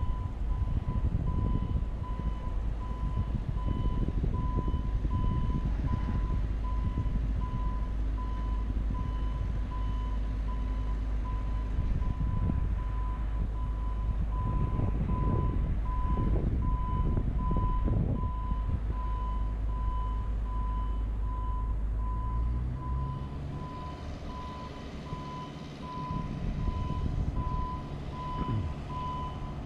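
JLG 150HAX boom lift's motion alarm beeping, an even, steady series of short high beeps that goes on the whole time, over a loud low rumble of wind on the microphone. About 23 seconds in the rumble drops and a low hum rises in pitch.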